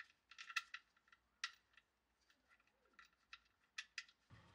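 Light, irregular metallic clicks and clinks of a steel sump plug and a new sealing washer being handled and fitted together. A soft rustle begins near the end.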